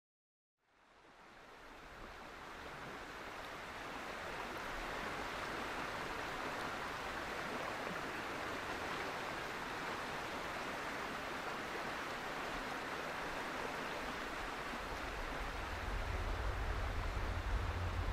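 River water running, a steady rushing that fades in over the first few seconds. A low rumble joins about three seconds before the end.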